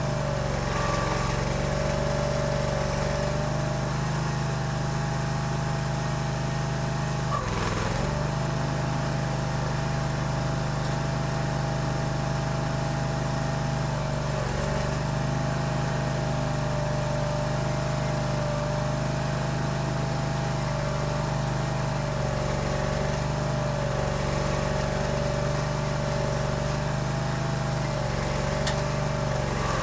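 Barreto E30SGB tracked stump grinder's engine running steadily at working speed, its pitch sagging briefly a couple of times as the cutter wheel takes load.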